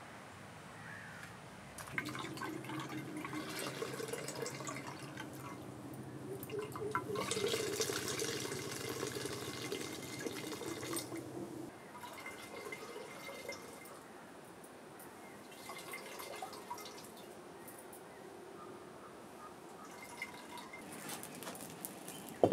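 Coconut milk squeezed from a cloth bundle, streaming and dripping into a pot. The pouring is steady for about ten seconds and then thins to faint dripping. Right at the end there is one sharp metallic knock as an aluminium pan is set down on the stove.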